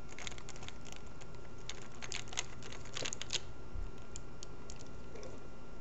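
Screwdriver turning the rear screw into a Crosman PumpMaster 760 air rifle: a run of small, light clicks and ticks, busiest about two to three and a half seconds in.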